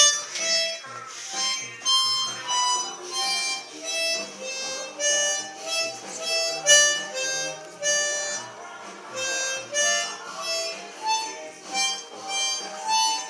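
Harmonica playing a slow melody of separate held notes, about two a second, with chord-like lower notes beneath.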